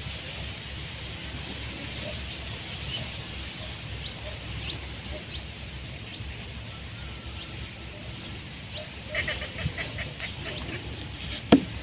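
Open-air waterside ambience: steady low wind rumble with faint, brief bird calls now and then. A quick run of small clicks comes about nine seconds in, and one sharp click near the end is the loudest sound.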